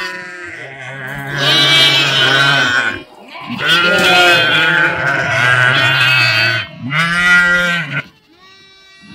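A flock of livestock bleating, many animals calling over one another in long wavering calls. There is a short lull about three seconds in, and the calling drops away near the end.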